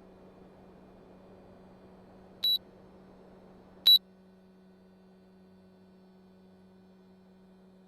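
Air conditioner beeping twice, short high electronic beeps about one and a half seconds apart, as when it takes a command from its remote or control panel. A steady low hum runs under them, and the faint hiss drops a little after the second beep.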